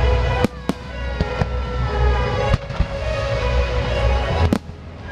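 Aerial fireworks bursting, with about five sharp bangs spread through the few seconds, over the fireworks show's music.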